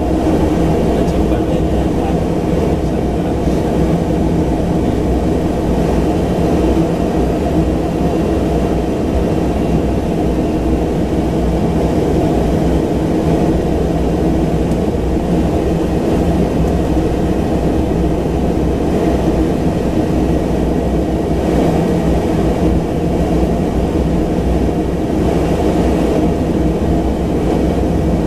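Single Pratt & Whitney PT6A turboprop engine and propeller of a Pilatus PC-12 running steadily on the ground, heard from inside the cabin as a loud, even drone with a few steady tones.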